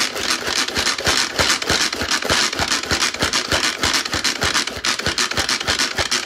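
Pampered Chef pull-cord manual food processor being worked hard and without a break. Each pull spins its blades through onion in the plastic bowl, making a continuous rattling, whirring chop of rapid repeated strokes as the onion is minced.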